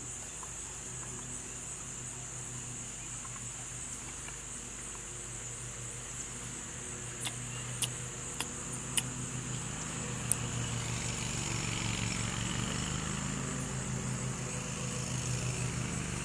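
Outdoor background of steady high-pitched insect chirring over a low motor hum, which grows a little louder in the second half. A few sharp clicks come about halfway through.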